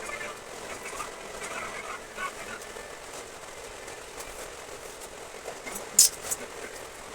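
Faint voice-like sounds in the first couple of seconds, then a low background hiss with a sharp click about six seconds in and a smaller one just after.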